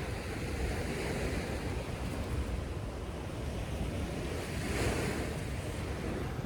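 Wind buffeting the microphone over the wash of surf, with the waves swelling about two seconds in and again near five seconds.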